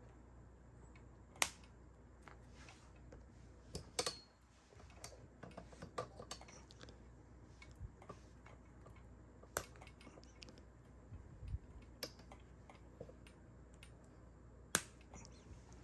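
WS2811 pixel bulbs being pressed by hand into 3D-printed plastic clips on a plastic spiral-tree frame: irregular small plastic clicks and handling rattles, with three sharper snaps spread through.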